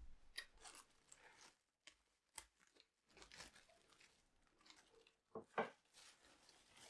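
Faint household handling sounds: scattered soft rustles, crinkles and light clicks, with one sharper knock about five and a half seconds in.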